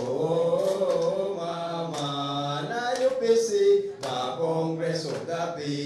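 Men's voices chanting in long held notes that step from pitch to pitch about once a second, with hand clapping.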